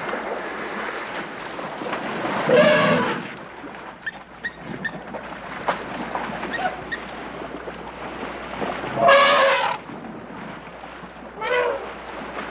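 African elephant trumpeting at a lion, three blasts: one about two and a half seconds in, the loudest about nine seconds in, and a shorter one near the end.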